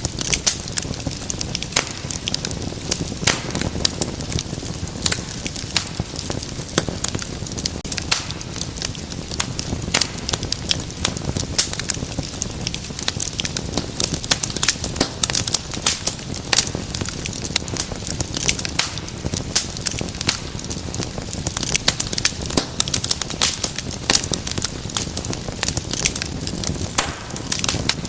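Wood fire crackling, with frequent sharp pops and snaps over a low steady rumble of flames.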